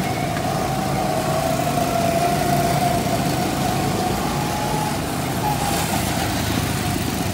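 Go-kart motors running as karts drive around the track: a steady whine that drifts slightly in pitch, over a low rumble.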